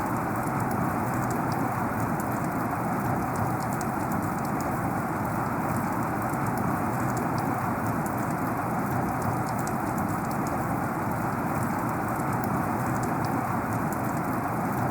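Heavy rain falling steadily: a dense, even hiss with many small, sharp drop ticks scattered through it.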